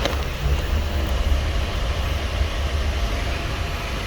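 Steady low rumble and road noise of a moving vehicle, heard from inside it.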